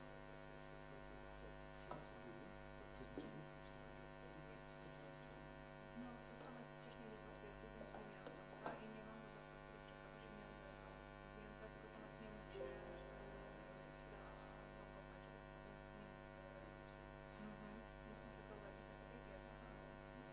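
Near silence: a steady electrical mains hum, with a few faint clicks and small rustles now and then.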